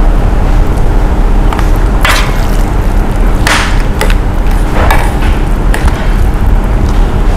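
Steady low rumble with three short, hissing scrapes about two, three and a half and five seconds in.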